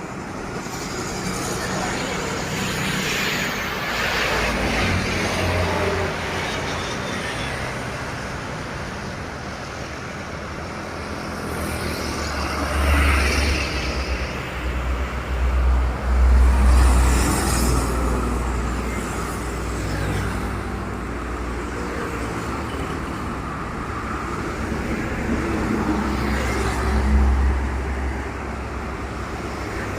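Heavy trucks passing on a road one after another. Their low engine rumble and tyre noise swell as each goes by, loudest a little past the middle and again near the end.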